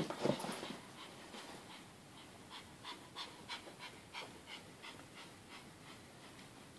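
A Pomeranian puppy panting quickly after rough play, soft short puffs about two to three a second. A louder scuffle of play noise opens it in the first half-second.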